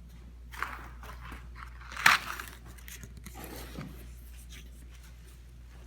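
Drawer hardware being handled on the bench: a few brief clatters and rustles, the sharpest and loudest about two seconds in, over a steady low hum.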